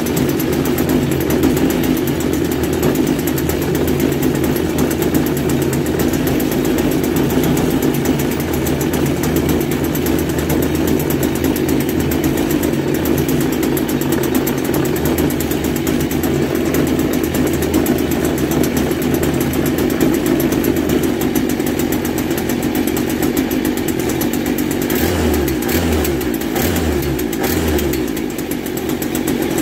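Stihl string-trimmer two-stroke engine, stripped down and mounted in an RC boat hull, running steadily and loud. It wavers slightly and dips near the end.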